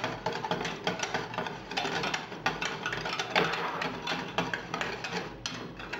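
A utensil stirring cream sauce in a stainless steel saucepan, with irregular light scrapes and clinks against the pan as the cream heats.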